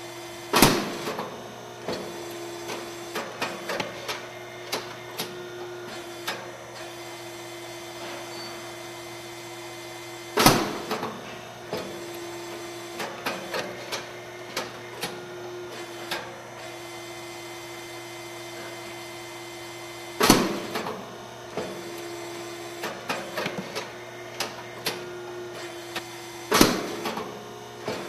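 Rice cake popping machine with an 85 mm round mold running its cycle: four loud pops as the heated mold opens and the pressed grain puffs into a cake, each followed by a scatter of lighter mechanical clicks and knocks, over a steady machine hum.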